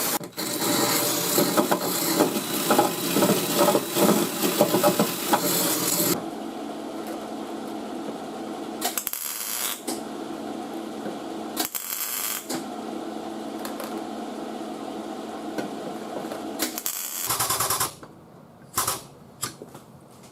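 Power tool running in a body shop. A loud, rattling run lasts about six seconds, then a steadier, quieter run with a few short louder bursts follows. Near the end come a few light taps and clicks.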